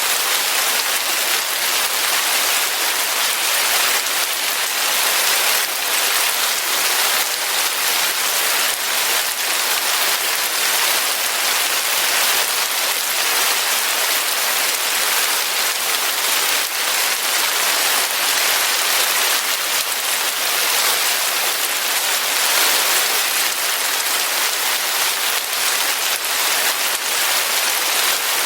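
Steady rain falling on a surface, a dense even hiss of many small drops that holds unchanged throughout.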